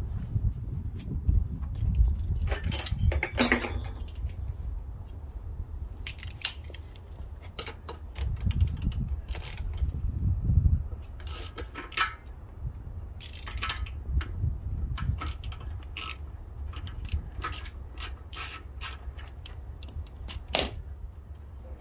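Hand tools and metal motorcycle parts clicking, scraping and rubbing during disassembly, with scattered sharp knocks and a metallic jangle about three seconds in.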